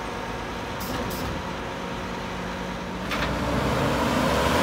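Mack LEU garbage truck's diesel engine running at idle, with two short air hisses about a second in. Near three seconds a sharp burst of air and the engine gets louder as the truck pulls forward.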